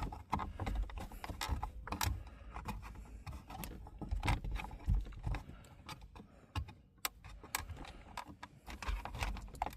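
Plastic interior trim of a Subaru WRX being handled and pressed back into place: an irregular run of sharp clicks, taps and knocks as the clips snap together.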